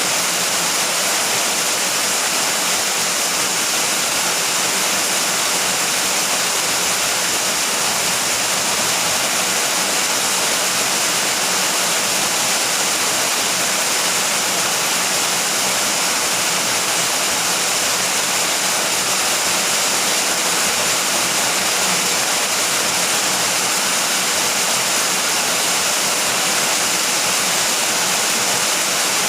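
Steady heavy rain, an even unbroken hiss with no thunder or music.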